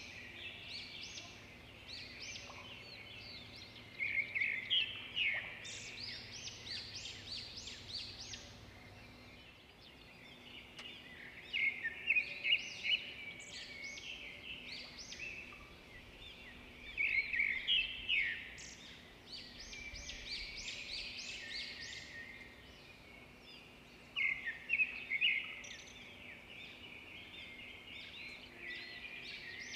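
Many small birds chirping without pause, with several louder flurries of quick, high chirps.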